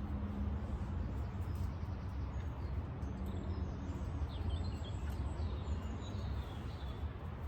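Small birds chirping and warbling faintly, mostly in the middle few seconds, over a steady low rumble.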